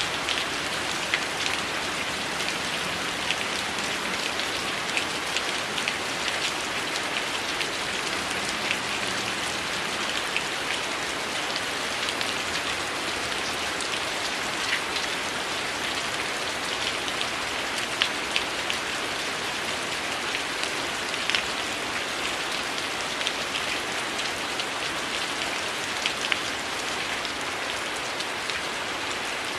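Steady heavy rain falling as an even hiss, with scattered sharp crackles and pops from a wood fire.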